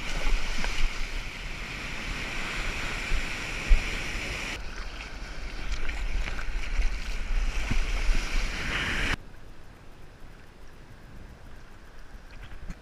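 Water rushing past a surfboard riding a wave, with wind buffeting the microphone in a heavy low rumble. About nine seconds in it drops suddenly to faint water sound.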